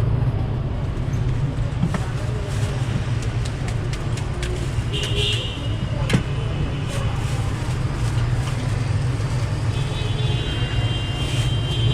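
Steady road-traffic rumble with scattered sharp clicks. A thin high tone sounds briefly about five seconds in and again near the end.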